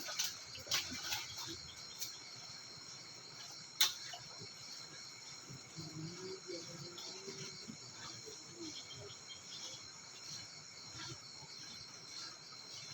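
Steady high-pitched insect trilling, with one sharp click about four seconds in.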